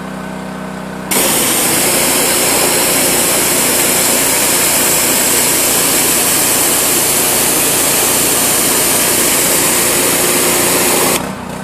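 Honda GC190 four-stroke pressure-washer engine running steadily. About a second in, the spray gun opens and the high-pressure water jet hisses loudly against vinyl siding. The hiss holds steady for about ten seconds, then stops shortly before the end, leaving the engine running.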